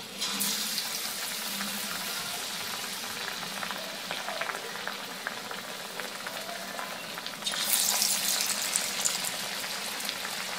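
Gram-flour-battered bottle gourd slices deep-frying in hot oil in a kadhai. The sizzling is steady as the first slice goes in, then flares louder when a second slice is dropped in, about three-quarters of the way through.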